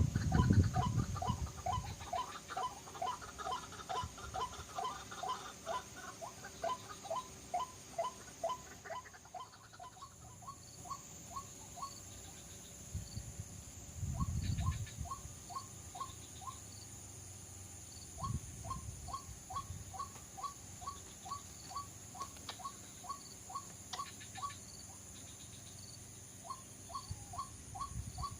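White-breasted waterhen calls repeated in a quick, even series of short notes, about two or three a second, breaking off and starting again several times. There are a few low thumps near the start and about halfway through, over a steady high insect-like hiss.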